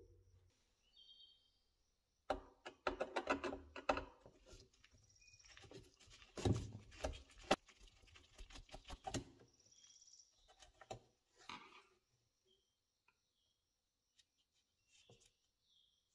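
Steel screwdriver scraping and clicking against a small rusty knurled nut and the old speaker's metal frame as the nut is worked loose. A busy run of scrapes and taps fills the first two-thirds, then only a few faint clicks.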